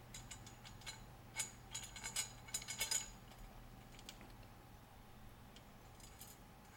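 Light metallic clicks and taps of the dress form's metal height-adjustment parts being handled on its chrome pole, several sharp ticks in the first three seconds, then only a few faint ones over a steady low hum.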